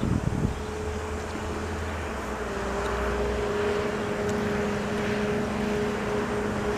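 Approaching commuter-train locomotive, a Bombardier ALP-45DP dual-mode unit, running with a steady hum. Wind buffets the microphone right at the start, and a low rumble fades out about halfway through.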